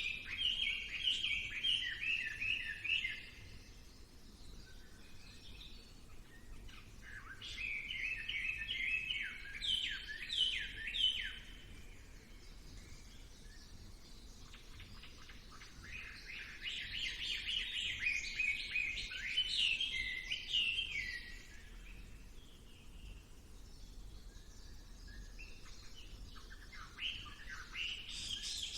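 Birdsong: a songbird sings in bouts of quick, repeated chirping notes, each bout lasting about three to five seconds. There are four bouts, with pauses of several seconds between them.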